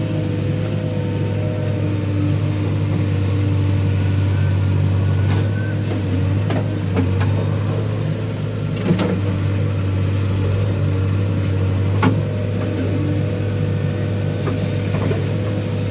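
Diesel engine of a JCB 3DX backhoe loader running steadily under work, with a few sharp metallic knocks, about six, nine and twelve seconds in.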